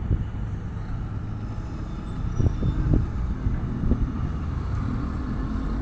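A motor vehicle's engine rumbling, with a few light knocks in the middle and a steady engine hum coming in about five seconds in.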